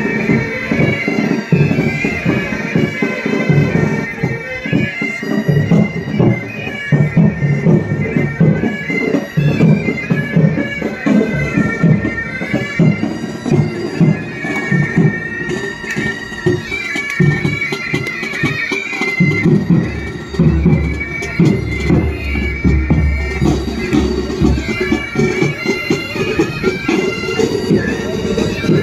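Military pipe band playing a march: Highland bagpipes sounding a steady drone under a high chanter melody, with side drums beating along.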